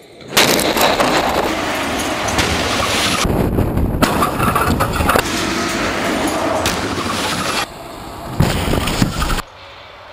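Heavy trucks running, as a loud rough rumbling noise broken by several abrupt cuts between clips. A few sharp bangs come near the end, then it drops much quieter.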